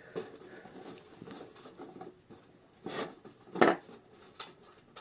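Small metal clock parts and a screwdriver clicking and clinking as screws are undone and pieces lifted off a clock movement. Scattered light taps, with a sharper knock about three and a half seconds in.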